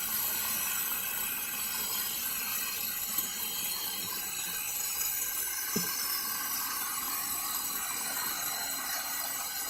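DIY 1x36-inch belt grinder running, its belt giving a steady hiss with a constant high whine. One brief knock about six seconds in.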